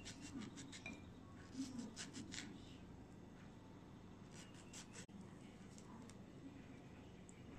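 Faint crackling ticks of orange peel being pulled and torn off the fruit by hand, coming in a few short clusters.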